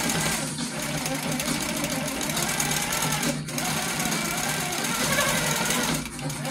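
Baby Lock Coronet quilting machine stitching steadily through a cotton-batted quilt as it is moved by hand for free-motion quilting.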